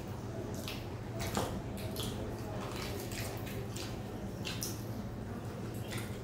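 Close-up eating sounds of two people eating by hand: wet chewing and mouth clicks, and fingers squishing soft fried luchi bread in curry. The sounds come as irregular short clicks and squelches, the strongest about a second and a half in, over a low steady hum.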